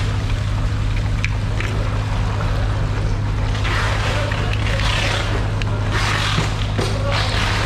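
Water running and splashing over a fish-cutting table, louder in the second half, over a steady low machine hum. A couple of light clicks come about a second in.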